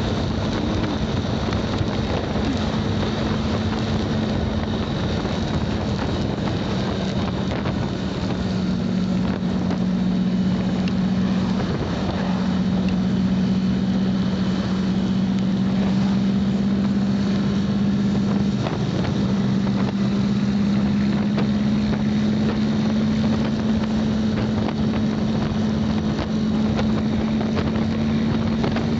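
Motorcycle engine running steadily while riding, its note dipping briefly twice, with wind noise buffeting the microphone.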